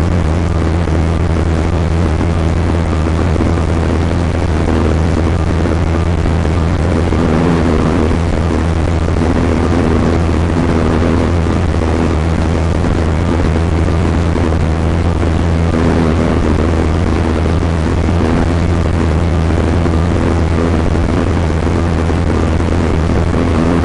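Steady low engine drone with a constant hiss over it, unchanging throughout.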